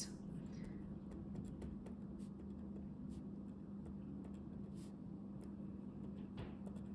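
Pen writing on a sheet of paper: faint, irregular scratchy strokes as the words are written out, over a steady low hum.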